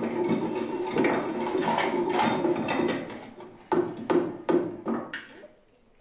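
Rough scraping and rubbing, then about five sharp knocks in quick succession that stop near the end.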